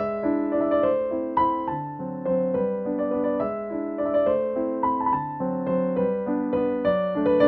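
Background piano music: a gentle keyboard melody over changing chords.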